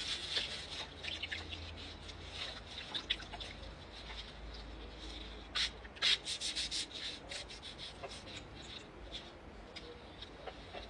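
Gloved hands and a paper towel rubbing and crinkling as they wipe a chicken's foot: a run of short rustles and crackles, thickest about halfway through.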